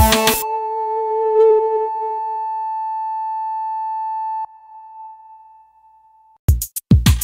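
Background electronic music: a single sustained synth note is held for about four seconds, fades out, then drum beats come back in near the end.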